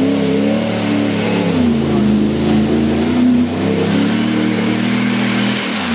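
Dodge Ram 1500 pickup's engine revving hard under load as the truck ploughs through deep mud puddles. Its pitch rises and falls with the throttle, over the splash and spray of mud and water.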